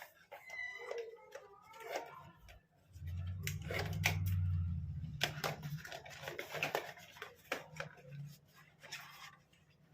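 Cardboard box and plastic packaging being handled and opened to take out a processor: scattered clicks, rustling and tearing, with a low rumble of handling for a couple of seconds near the middle.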